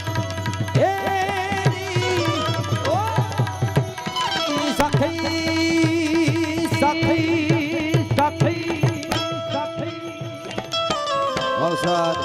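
Instrumental interlude of Gujarati folk devotional music: tabla drumming with gliding bass strokes, small brass hand cymbals (manjira) clinking, and a sustained melody line over a steady pulse.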